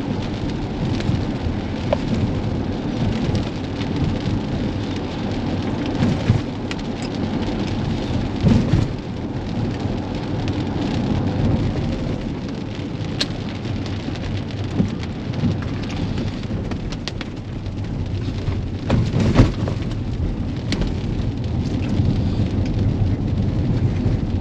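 Rain pattering on a Tesla Model X's windshield and roof, heard from inside the cabin, over the steady hiss and rumble of its tyres on a wet road. A couple of louder thumps come about 8 and 19 seconds in as the car rolls over bumps in the road.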